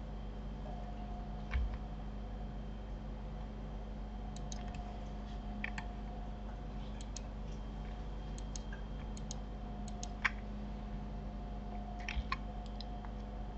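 Scattered computer mouse clicks and keyboard key presses, with a couple of duller knocks about a second and a half in and near the end, over a steady low electrical hum.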